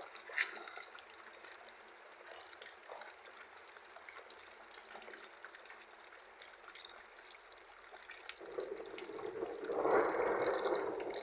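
Harvested rainwater pouring and dripping into a storage tank during heavy rain, with scattered drips. About eight and a half seconds in, the splashing grows louder and fuller.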